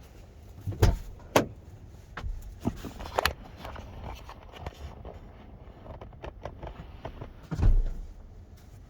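Handling noise: a few sharp clicks and knocks in the first few seconds, then a heavier thump near the end.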